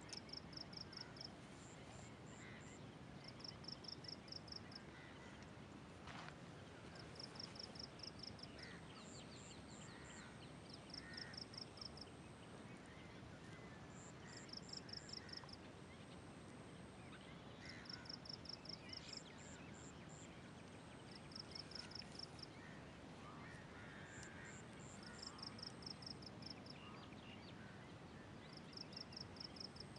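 Faint outdoor dawn ambience of calling animals: a high call of about eight quick pulses repeats every three to four seconds, with shorter high chirps and scattered calls over a soft background hiss.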